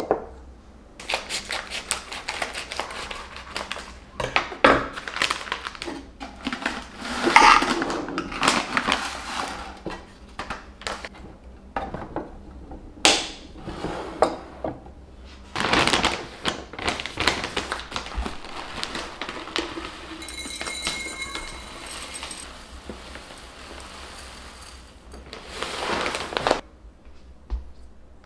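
Glass storage jars with wooden lids being handled on a table: a string of short clinks, knocks and rustles as jars and lids are set down and moved.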